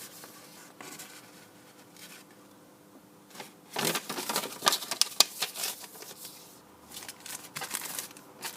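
Folded paper leaflets from a toy box being handled and unfolded, crinkling in short bursts, busiest about four to five seconds in, with a few lighter rustles near the end.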